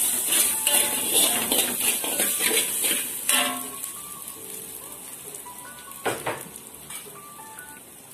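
Shallots, garlic, ginger and curry leaves sizzling in hot oil in a wok, with a metal spatula scraping and clattering against the pan for the first few seconds. After that it is just the sizzle, quieter, with a single knock about six seconds in.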